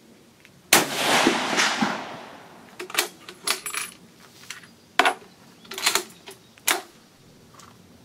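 A single shot from an 1898 Krag bolt-action rifle in .30-40 Krag, with a long echo dying away over about a second. This is followed by a series of short, sharp metallic clacks as the bolt is worked.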